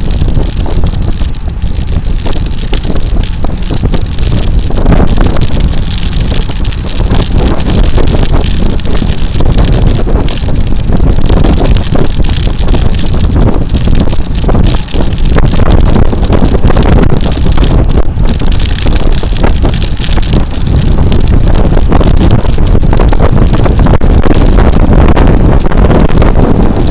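Heavy wind buffeting the microphone of a camera on a moving bicycle: a loud, rumbling rush that surges and eases but never stops.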